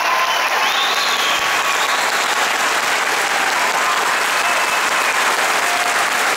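A large audience applauding steadily, a dense wash of clapping across the whole hall, with a few faint calls or whistles rising over it.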